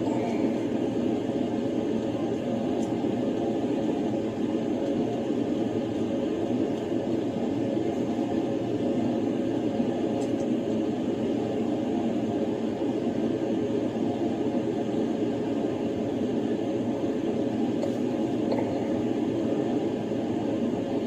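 Steady hum and hiss inside a police car's cabin, the car's engine and ventilation running, with a few faint brief ticks.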